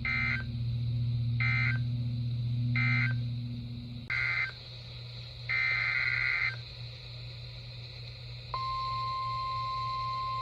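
NOAA Weather Radio SAME digital data bursts: three short screechy bursts about 1.4 s apart, marking the end of the previous warning, then a short burst and a longer one about a second long. About 8.5 seconds in, the Weather Radio warning alarm tone begins, a single steady high tone.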